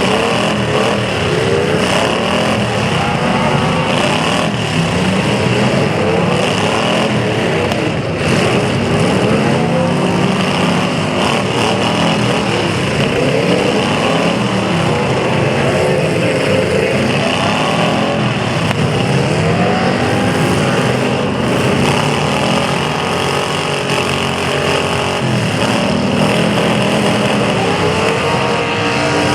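Several demolition derby cars' engines revving up and down at once, many overlapping engine notes rising and falling without a break.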